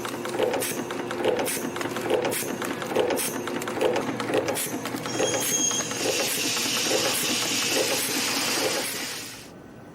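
YHM CT-210 CNC micro spring machine running through its coiling cycles: a repeating mechanical clatter with sharp clicks a little more than once a second. About six seconds in a steady high hiss joins it, and both stop shortly before the end.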